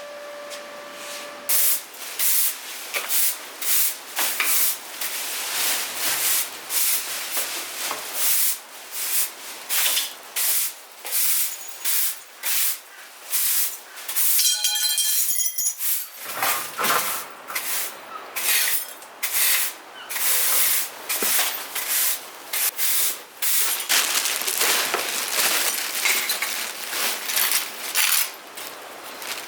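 Repeated short scraping strokes on a classic Mini's metal bodywork, about one or two a second, as paint and rust are worked off by hand. A brief metallic ring sounds about halfway through.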